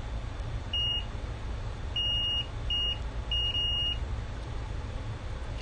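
Multimeter on continuity test giving four short, high, steady beeps over about three seconds, the last the longest, as the probes touch the board's test points: each beep signals a short still in the circuit. A steady low hum runs underneath.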